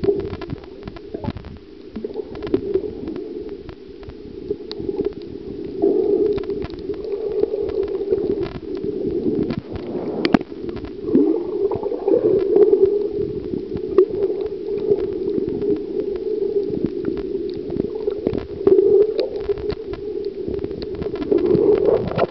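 Muffled underwater sound picked up by a submerged camera: a steady low rumble of moving water that swells and fades, with scattered sharp clicks and crackles.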